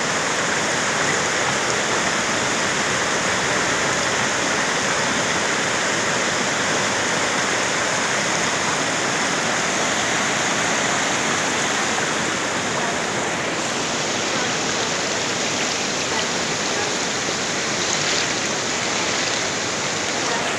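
Floodwater of a swollen river rushing steadily, a loud, continuous rush that eases slightly about two-thirds of the way through.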